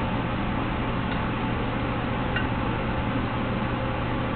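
Steady background hum and hiss, with two faint short sounds, one about a second in and one past two seconds.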